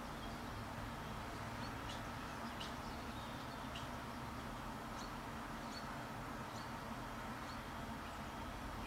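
A string of faint, short, high-pitched songbird calls, roughly one a second, over a steady low rumble and hiss.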